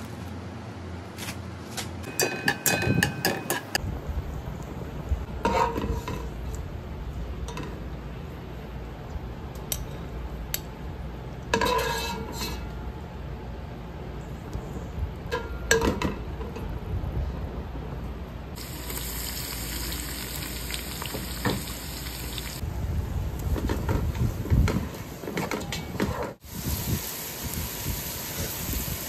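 Cashew nuts frying in hot oil in a pot, sizzling steadily, with several sharp metallic clinks of a wire strainer against the pan and plate. Near the end, sliced onions sizzle in the pot as they are stirred with a wooden spoon.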